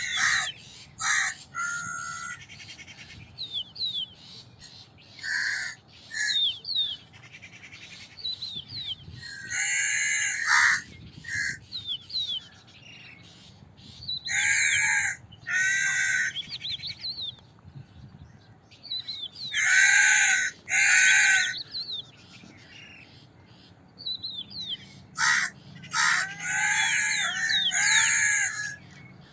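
Crows cawing: harsh calls in short runs, often two close together, with pauses of a few seconds between. Small birds chirp faintly in the gaps.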